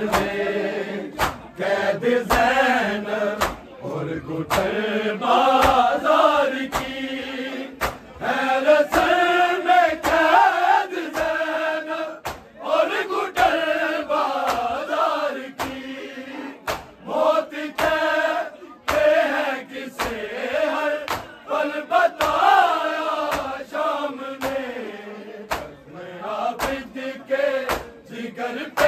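A group of men chanting a Muharram noha (Urdu lament) in unison. Sharp rhythmic slaps of matam (chest-beating) keep time about once a second.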